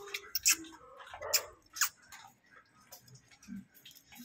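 A dog eating from a bowl, with a few sharp clicks of chewing in the first two seconds.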